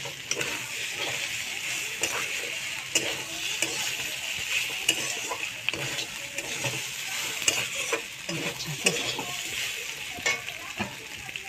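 Soya chunks and fried potato pieces sizzling in oil in a metal kadhai while a metal spatula stirs them, scraping and clinking against the pan many times over a steady sizzle.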